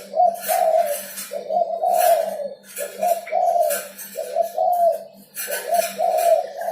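Derkuku (island collared dove) cooing in repeated low, throaty phrases, a few coos a second with short breaks between them: the song of a male in full voice, as used to lure wild doves and to prompt caged ones to call.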